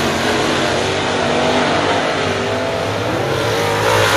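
A pack of dirt late model race cars' V8 engines running at speed, with engine pitch rising and falling as they go through the turn. The engines get louder near the end as cars come around close by.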